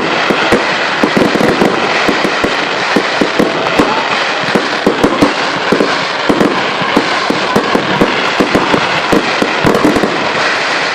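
Fireworks display: a dense, continuous barrage of bangs and crackling, many reports a second without a break.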